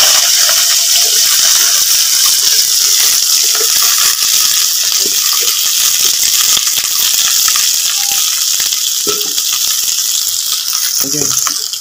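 Sheem (flat beans) sizzling loudly in hot oil in a kadai, just after being tipped in; the hiss eases slightly near the end.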